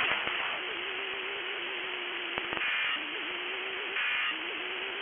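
Radio static hiss after the warning broadcast, with a faint wavering low tone and short higher-pitched bursts every second or two.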